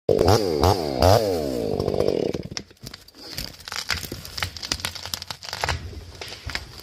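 Two-stroke chainsaw revving in three quick blips, then running on and dying away about two and a half seconds in; scattered light clicks and knocks follow.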